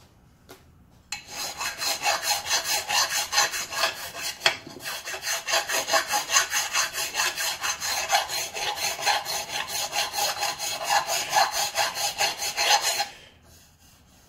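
Hand file scraping back and forth in quick, even strokes, about four to five a second, on the cast aluminium rim of a Delta compound miter saw's turntable base. It is deburring the spot where the turntable was rubbing. The filing starts about a second in and stops abruptly shortly before the end.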